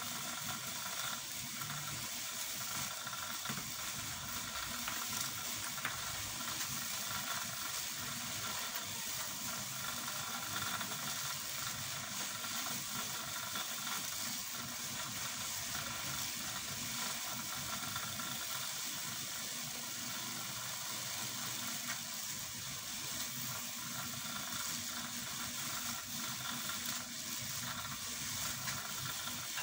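Steady hissing background noise with a faint hum.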